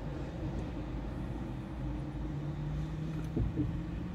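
Car engine and road rumble heard from inside the cabin while driving, the engine note rising slightly near the end. A brief knock a little over three seconds in.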